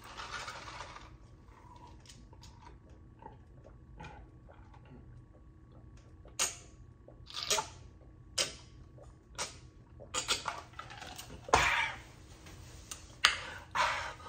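Drinking from a plastic cup: a run of gulps about one a second, with a couple of louder, sharper sounds near the end.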